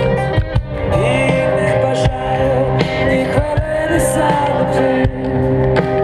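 Live rock music at a stadium concert, played loud over the PA and heard from within the crowd, with a male singer's vocal over the band.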